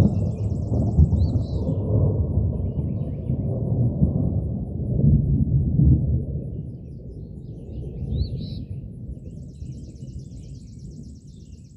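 A long roll of thunder rumbles, loudest for the first six seconds or so and then slowly fading away. A bird chirps and trills over it near the start and again near the end.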